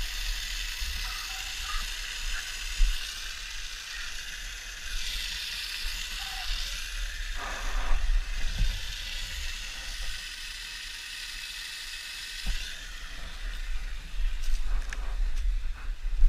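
Water spraying in a fine jet from a leaking fitting on a petrol water pump's outlet: a steady hiss that stops about thirteen seconds in, over a constant low rumble.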